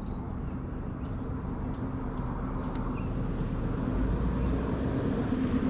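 Steady low engine hum that grows a little louder near the end.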